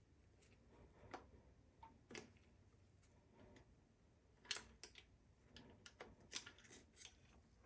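Faint, scattered clicks and light metal taps of hand tools working on the upturned engine block, a few sharper ones past the middle.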